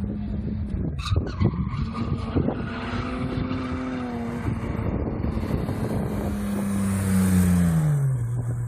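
BMW E30 3 Series coupe's engine held at a steady high note as the car approaches. It passes close near the end, when the engine note drops and the tyres give a high squeal.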